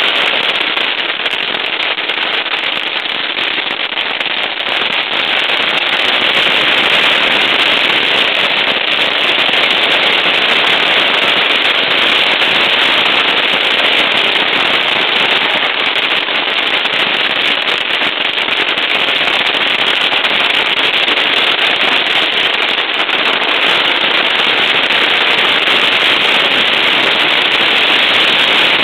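Strings of firecrackers going off in one continuous rapid crackle that never lets up.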